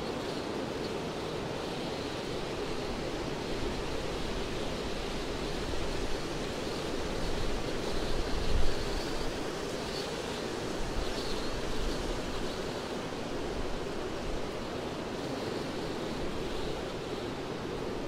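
Wind blowing through pine tree crowns: a steady rushing, with a stronger gust swelling about halfway through.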